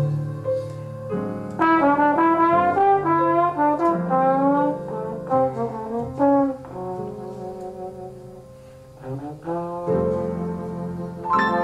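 Slide trombone playing a jazz solo: a loud melodic phrase of many notes that softens in the middle and swells up again near the end. Steady held notes from the band sound underneath.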